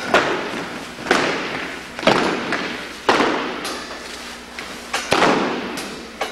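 Drill marching beat: a sharp, echoing strike about once a second, keeping the pace as the files march, with a quick double strike about five seconds in. The strikes ring on in the hard-walled gymnasium.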